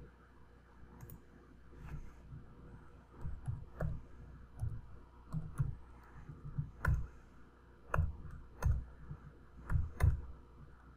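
Computer keyboard keystrokes and mouse clicks at an irregular pace, each with a dull knock beneath it.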